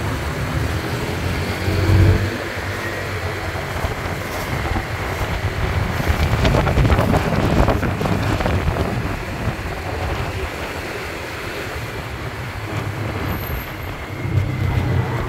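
Wind buffeting the microphone over the running engine and road noise of a motorcycle-taxi scooter, heard from the pillion seat while riding. The engine's low hum is louder in the first couple of seconds and again near the end.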